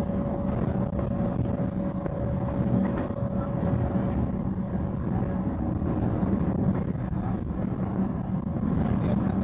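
Cairo Metro train running on surface track, heard from inside the carriage: a steady low rumble of wheels and running gear, with a thin steady whine that fades out about halfway through.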